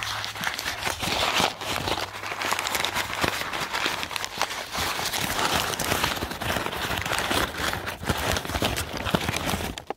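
Wrapping material crinkling and crackling as an item is unwrapped by hand, a continuous rustle with many small crackles over a low steady hum.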